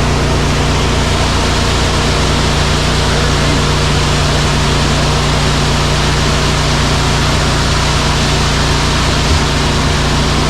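Ready-mix concrete mixer truck's diesel engine running steadily with a constant low hum, driving the turning drum as concrete is discharged.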